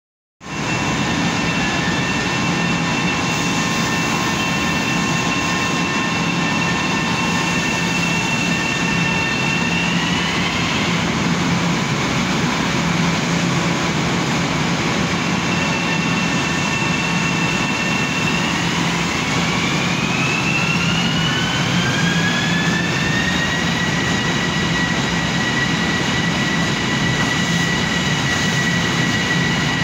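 Long Island Rail Road M7 electric train departing underground: a steady hum and hiss, with its electric propulsion whine rising in pitch briefly about a third of the way in, then climbing for several seconds from about two-thirds in as the train gathers speed, before holding steady near the end.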